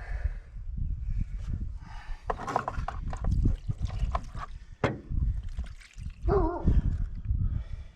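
Clicks, knocks and scraping of a filter wrench working an old fuel filter loose on a Hitachi EX100 excavator. There is a short grunt-like voice sound a little after six seconds in.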